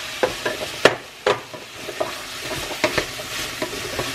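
Chopped celery and carrot going into a stainless steel pot of onion and squash frying in oil, then stirred with a wooden spoon: a steady sizzle with sharp knocks and scrapes of the spoon and vegetables against the pot, the loudest about a second in.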